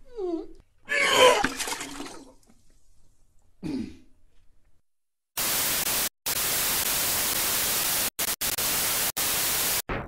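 A few short sounds that fall in pitch and a brief noisy burst, then about four and a half seconds of loud static hiss that cuts out briefly several times.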